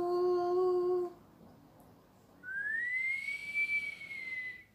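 A boy whistling one long note that slides up and then holds, starting about halfway through. Before it comes the tail of a long, sung-out "ciao" at a steady pitch.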